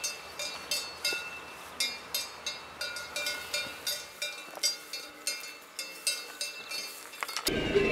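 Cowbells clanking irregularly, several strikes a second, each ringing briefly. Music starts suddenly near the end.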